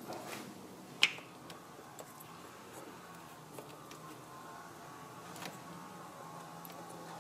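A few light clicks and taps from a new camshaft position sensor being pushed and turned into its bore in the engine's aluminium cylinder head, with one sharper click about a second in.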